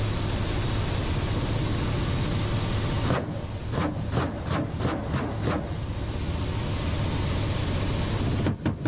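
Helicopter cockpit noise: the steady drone of the rotor and engines. About three seconds in, a quick run of about seven sharp bangs cuts through for a couple of seconds before the steady drone returns.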